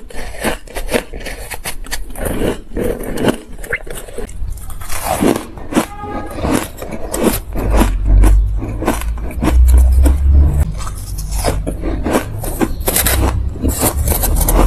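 Crushed ice crunching as it is bitten and chewed. About halfway through, a metal spoon scrapes and stirs crushed frost ice in a plastic tub, crackling, with deep thuds.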